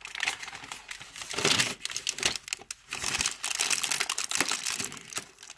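Packaging of a cardboard biscuit advent calendar crinkling in quick, irregular bursts as hands struggle to get a biscuit out of its door.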